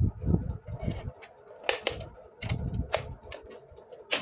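Small plastic toy parts being handled: a few sharp, irregular clicks and taps over soft handling thuds.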